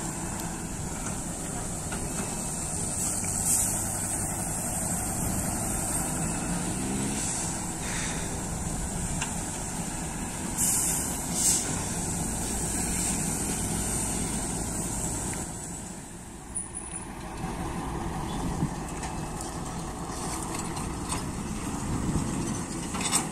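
Diesel engine of a flatbed transporter truck running steadily, with a few short hisses.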